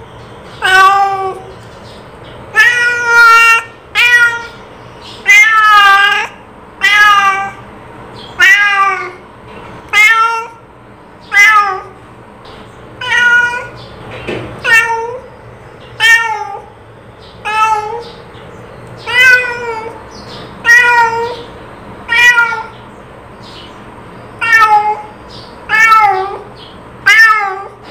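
A cat meowing over and over: about twenty short meows roughly a second apart, each bending up and then down in pitch.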